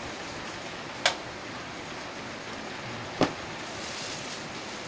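Two short sharp clicks, about two seconds apart, over a steady hiss: small plastic-wrapped audio parts being picked up and set down in a cardboard box while unpacking.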